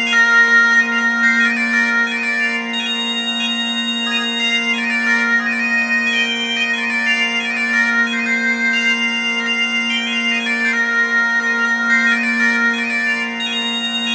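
Bagpipe playing a slow melody on the chanter over a steady, unbroken drone.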